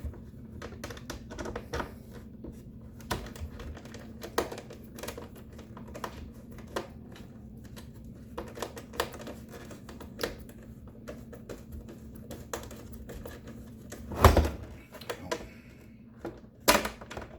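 Plastic coffee-maker housing and its screws being handled during reassembly: a run of small clicks and taps, with a loud knock about 14 seconds in and another sharp knock near the end.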